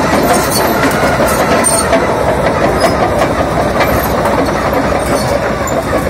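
Caterpillar D8R bulldozer's diesel engine running, a loud steady mechanical clatter with scattered ticks.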